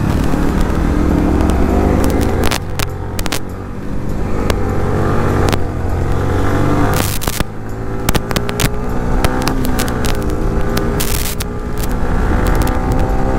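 Motorcycle engine running under way, its pitch rising and falling with the revs, over a heavy low rumble, with scattered sharp knocks and clicks now and then.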